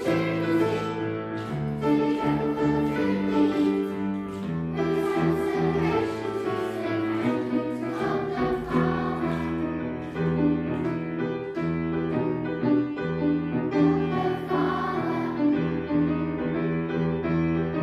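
Group of young children singing a song together, with piano accompaniment.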